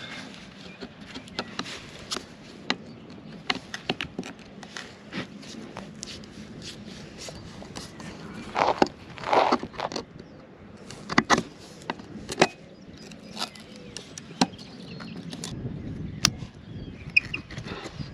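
Irregular clicks, clinks and knocks of hand tools working on the anchor windlass's nuts and bolts, with a few louder knocks in clusters partway through.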